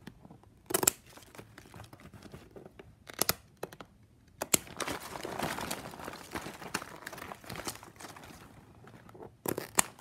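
Scissors snipping off the excess ends of plastic strapping-band strips: several sharp, separate snips, with crinkling of the stiff plastic strips being handled in between.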